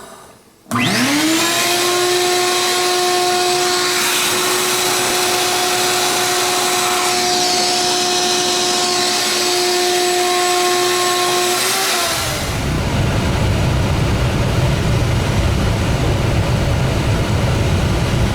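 Wet/dry shop vacuum motor starting up, spinning quickly up to speed and running with a steady whine. About twelve seconds in the whine ends and a steady low rumble takes over.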